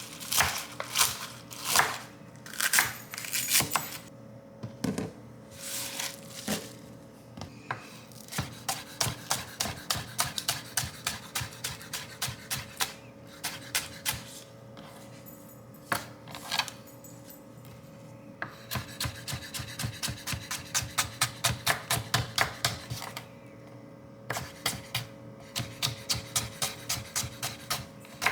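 Kitchen knife chopping on a cutting board, in quick runs of about five strokes a second broken by pauses, with faint background music.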